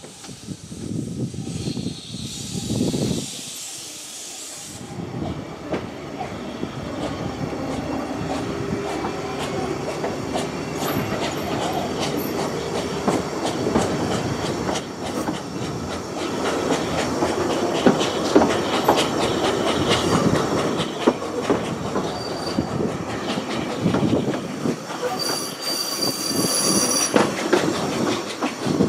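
Narrow-gauge railway carriage running along the track: a steady rattle and clatter of the wheels over the rails, with a high wheel squeal near the end.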